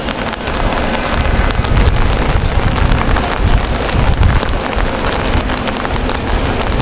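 Steady rain falling on the street and nearby surfaces, dense with the small ticks of individual drops, over a continuous low rumble.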